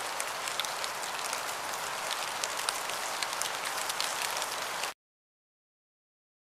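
A steady crackling hiss, dotted with many small clicks, that cuts off abruptly about five seconds in, followed by dead silence.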